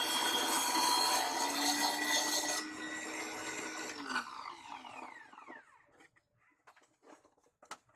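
Mini table saw running with its blade in wood; about two and a half seconds in the cutting noise stops and the motor runs free. About four seconds in it is switched off and winds down with a falling whine, followed by a few light clicks and knocks.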